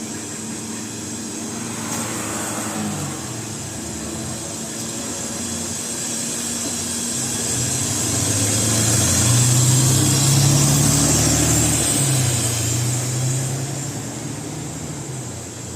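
Mercedes-Benz Citaro bus's diesel engine running under a steady high air hiss. The engine note drops about three seconds in, then rises and grows louder through the middle before easing off near the end.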